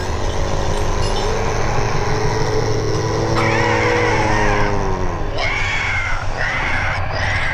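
Horror sound-effects track: a steady low rumble, with a long wavering moan-like tone through the middle and higher wavering cries joining in the second half.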